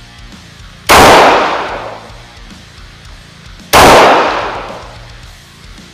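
Two unsuppressed shots from an FN 509 Tactical 9mm pistol, about three seconds apart, each sharp and loud and echoing for about a second.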